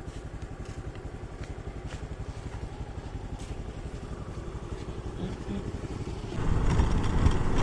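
Motorcycle engine running at idle with a steady low, fast putter, growing louder about six and a half seconds in as the bike is revved and pulls away.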